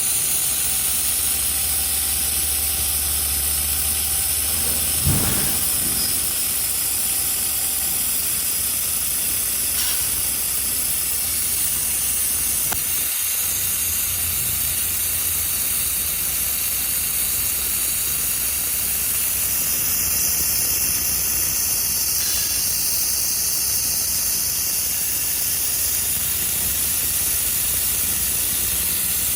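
Fiber laser welding machine at work with a steady hiss, a low hum under it for the first few seconds, and a single sharp click about five seconds in.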